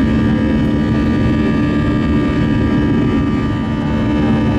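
Airbus A320 cabin noise while climbing out after takeoff: the engines' steady roar with a constant whine of fan tones.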